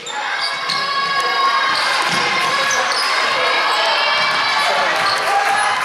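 Game noise in a sports hall: a ball thudding on the hard floor amid overlapping high-pitched shouts and cheering from the crowd.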